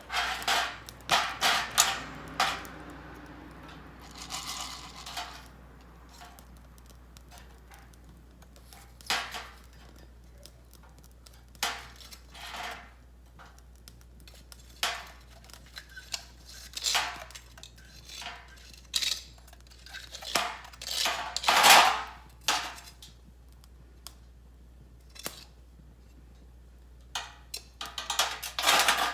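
Coffee beans rattling and clinking inside a handheld hand roaster as it is shaken over the fire, in short irregular bursts with quiet gaps between.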